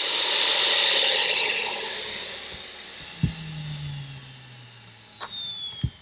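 FLUX F457 commutator motor running with freshly fitted carbon brushes, being run in to seat them, then winding down, its whine falling in pitch and fading. A low knock a little past three seconds and sharp clicks near the end.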